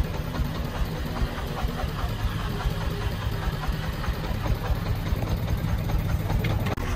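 Komatsu mini excavator's diesel engine running steadily at an even low pitch as the machine swings its arm and bucket.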